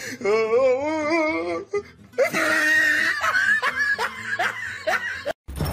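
A person laughing: a wavering, high-pitched giggle, then breathier laughter in short catches, cut off suddenly near the end.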